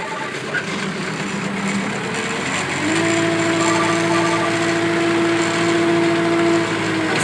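Moffett piggyback forklift's engine running, with a steady hydraulic whine setting in about three seconds in as the mast is extended and holding until it drops away just before the end.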